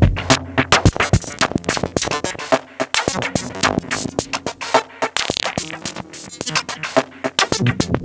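Electronic drum-machine beat played on a Teenage Engineering OP-1, run through a Waldorf 2-Pole analog filter and an Artec analog delay: a fast, steady pattern of sharp, clicky percussion hits with little bass, and a brief filtered sweep about five seconds in.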